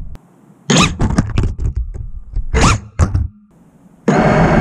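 An FPV racing quadcopter's motors spin in a run of short bursts, with knocks and scrapes of its frame on concrete, as the crashed, upside-down drone is flipped back upright. Heavy metal music comes back in near the end.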